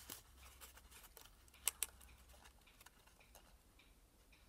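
Faint handling of folded paper origami modules: soft scattered ticks and rustles, with two sharper clicks close together a little under two seconds in.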